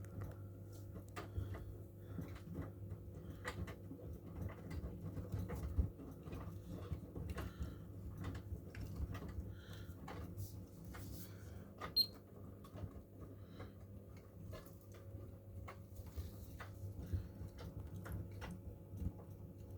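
Miele washing machine running: a steady mechanical hum with irregular clicks and ticks throughout.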